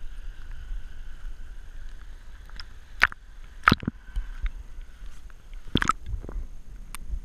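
Scuba diver breathing through a regulator, heard underwater through a head-mounted camera housing: a long faint hissing inhale, then loud bursts of exhaust bubbles about three seconds and six seconds in.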